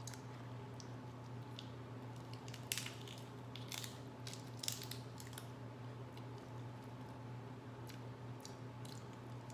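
Shellfish shells being cracked and peeled by hand, along with chewing, in sharp crackles that bunch together a few seconds in and come back a few times near the end, over a steady low hum.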